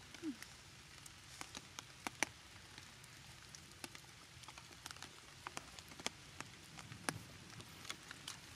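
Raindrops tapping on a clear plastic umbrella: sharp, irregular taps over a faint steady hiss.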